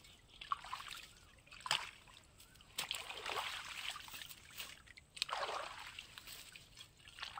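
Shallow, muddy canal water splashing and sloshing as a long blade is jabbed and swung into it, in about four separate bursts with quieter gaps between.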